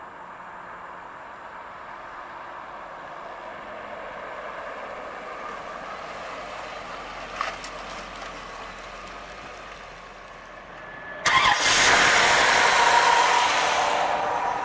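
1993 Chevrolet Corvette's V8 running as the car drives up and turns in to park, with a single click about halfway through. About eleven seconds in, a much louder, broad hissing noise cuts in suddenly and carries on to the end.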